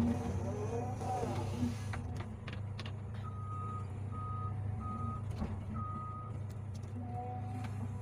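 Excavator's diesel engine running steadily, its hydraulics whining up and down in pitch during the first second or so as the boom and bucket move. From about three seconds in, a warning alarm gives four short beeps at one pitch.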